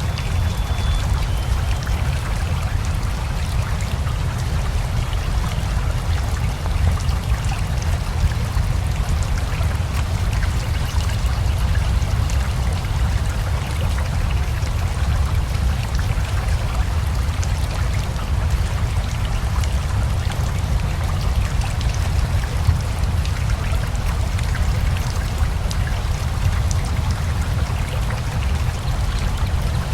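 Steady rain mixed with rushing river water: an even, continuous wash with a deep low rumble and scattered fine drips on top.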